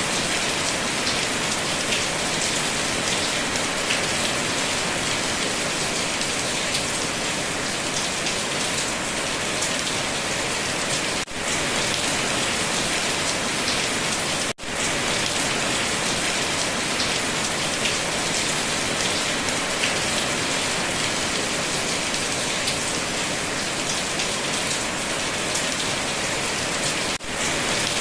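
Steady rain falling: a dense hiss with scattered drop ticks. It cuts out for an instant three times, at about 11 and 14.5 seconds and near the end.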